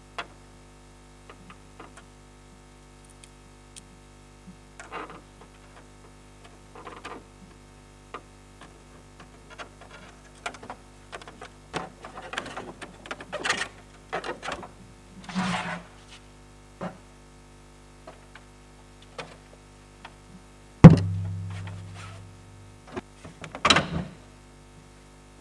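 Small clicks, taps and scrapes of 3D-printed plastic wing struts being handled and fitted, and a small screwdriver turning a tiny screw at a strut joint, over a steady low hum. Near the end comes one loud thump that rings out low for over a second.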